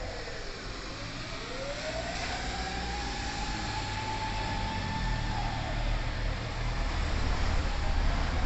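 Fire department vehicle's mechanical motor siren on an emergency run, winding down and back up in slow swells: it falls, climbs back to a steady wail by about 3 s, falls again after about 5 s and starts climbing once more near the end. Underneath, the vehicle's engine rumble grows louder toward the end.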